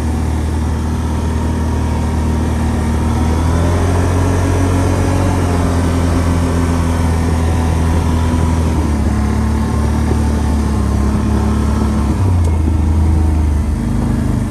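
CFMoto ATV engine running, heard from on board while riding, its note stepping up and down a few times with the throttle.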